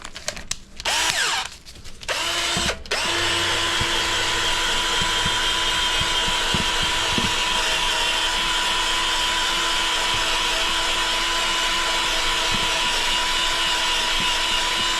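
A handheld power tool cleaning up the buffed area inside a tire before patching. It runs in a few short bursts, then holds a steady, constant pitch for about twelve seconds.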